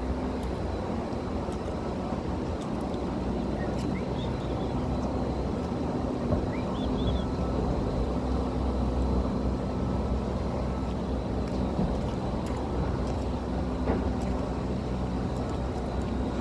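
Steady low rumble of street traffic and running engines, with a constant low hum underneath and a few faint ticks and high chirps.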